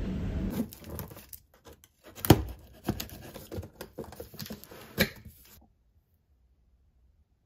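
A cardboard delivery box being opened by hand, with packing tape tearing and cardboard flaps crinkling and knocking in an irregular run of sharp clicks; the loudest knocks come about two seconds in and about five seconds in. A low station rumble cuts off about half a second in, and the sound drops out to silence for the last two seconds.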